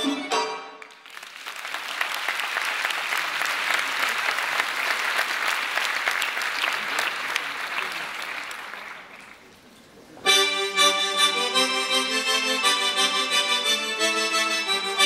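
Folk dance music ends, and an audience applauds for about eight seconds, the clapping fading away. About ten seconds in, new instrumental folk dance music starts abruptly.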